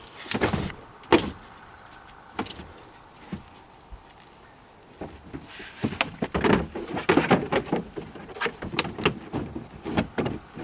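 Clunks, knocks and rattling as a car's door or hatch and its parts are handled while getting at the spare tire. There is a sharp knock about a second in, then a busy run of knocks and rustling from about six seconds in.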